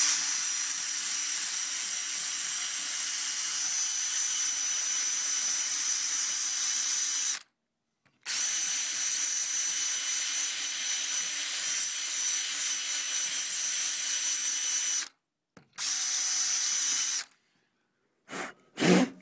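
Power drill with a masonry bit drilling into stone to widen a mounting hole: a steady motor whine over grinding. It runs in three stretches, two of about seven seconds and a short one, each cutting off sharply, then two quick blips of the trigger near the end.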